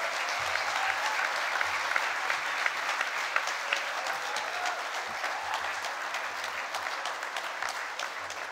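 A church congregation applauding: many hands clapping steadily.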